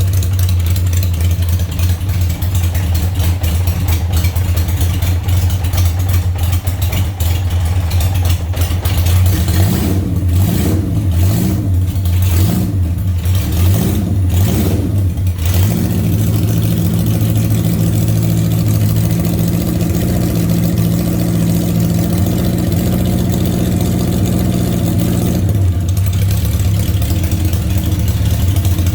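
Engine idling steadily, revved in several quick rises and falls about a third of the way in, then settling to a steady run with a changed note.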